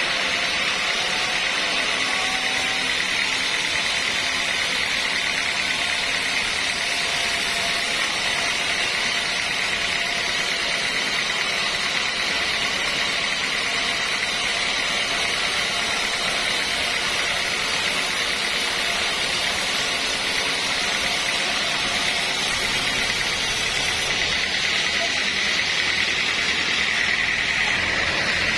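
Sawmill machinery running: a steady, unbroken hissing whine with no pauses.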